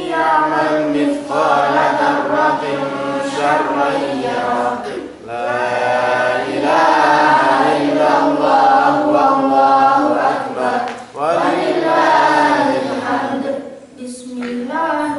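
A boy's voice reciting the Qur'an in Arabic in melodic chant (tilawah) into a microphone. Long, ornamented held phrases are broken by short pauses about five, eleven and fourteen seconds in.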